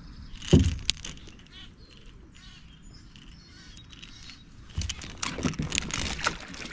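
Handling noises as a caught smallmouth bass is unhooked: a thump about half a second in, then a run of clicks and metallic rattles near the end.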